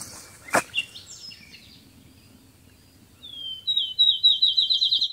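A songbird singing: a short falling note, then a quick run of about nine repeated notes that cuts off suddenly. This is the loudest sound. Fainter chirps come before it, and a single footstep or knock sounds about half a second in.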